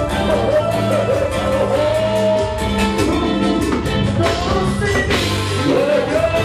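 Live band playing Latin American dance music: a sung melody over bass and a steady beat.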